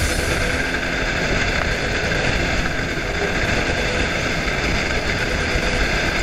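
Rigid inflatable boat running at speed on open sea: steady engine noise mixed with wind and rushing water.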